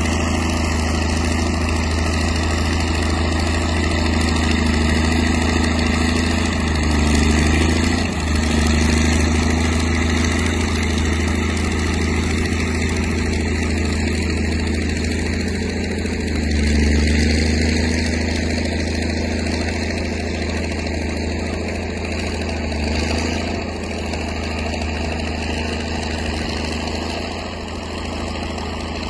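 Crawler tractor's diesel engine running steadily as it tows four loaded freight sleighs through snow, swelling briefly about seven seconds in and again around seventeen seconds, then easing off a little toward the end.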